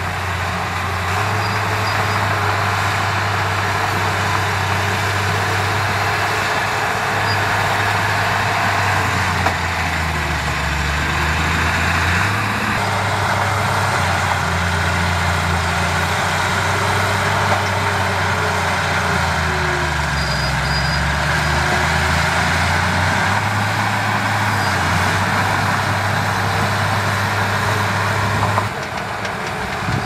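Bulldozer's diesel engine running hard, with a steady mechanical noise over it; the engine note sags in pitch and recovers twice, as under load. The sound drops suddenly near the end.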